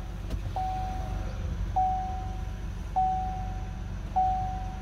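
The Buick Lucerne's dashboard warning chime sounds four times, a single clear tone about every 1.2 seconds that fades after each strike. Under it the car's engine idles with a low, steady rumble.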